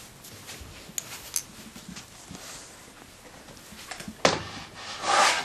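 Clothes and a bag being handed over and handled: soft fabric rustling with a few light clicks. About four seconds in comes a sharp knock, then a brief, louder rustling swell near the end.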